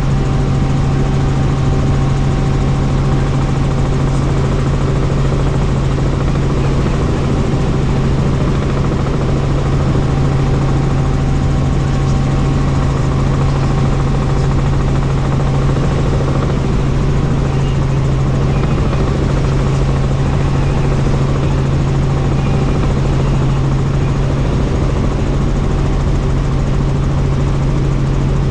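Helicopter in flight: a loud, steady drone with a strong low hum from the rotors and engine that does not change.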